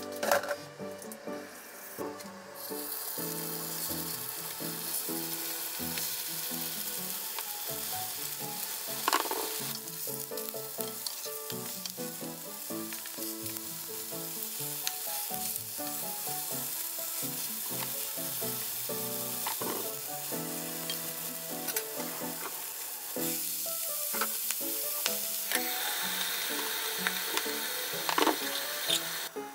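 Chicken tsukune patties sizzling in oil in a nonstick frying pan, with a few clicks of a metal spatula as they are turned, over background music. The sizzle starts about two and a half seconds in and flares louder near the end as sake is splashed into the hot pan.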